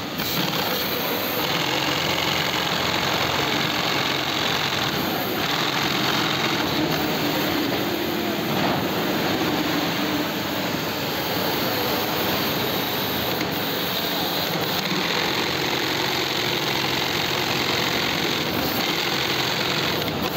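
Heavy-duty industrial sewing machine running steadily as it stitches woven bag fabric, over a constant hum of factory machinery.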